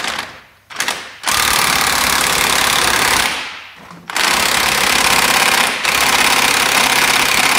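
Impact wrench hammering as it undoes a bolt in a car's engine bay. Two short bursts come first, then a run of about two seconds, then a long unbroken run from about four seconds in.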